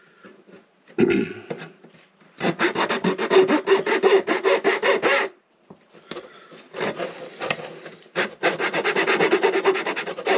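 Razor saw cutting through thin wood with quick back-and-forth strokes, in two runs: one from about two to five seconds in, a second starting about eight seconds in.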